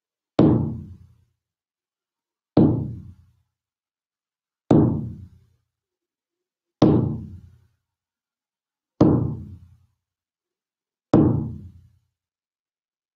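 Shamanic hand drum beaten in a slow, steady pulse, one low stroke about every two seconds, each ringing briefly and fading out within a second.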